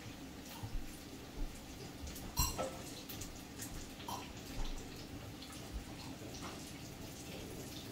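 Chicken frying in hot oil, crackling with scattered small pops, and a sharper metal clink about two and a half seconds in.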